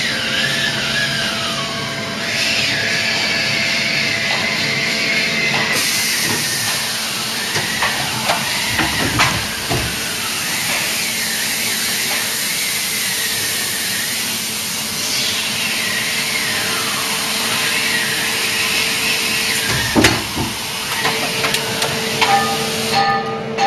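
Mori Seiki MH50 horizontal machining centre running: a steady hum with a loud hiss that starts about six seconds in, a few knocks around eight to ten seconds and again at about twenty seconds, and whines that rise and fall.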